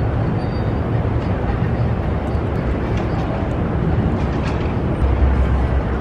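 Steady city street noise: a low rumble of traffic, swelling louder for a moment about five seconds in.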